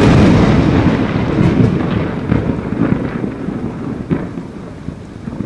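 Logo-reveal sound effect: a thunder-like rumble with crackle that hits suddenly and then slowly fades away.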